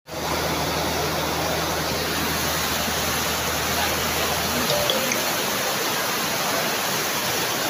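Floodwater rushing down a street in a fast, muddy torrent: a steady, loud rush of water.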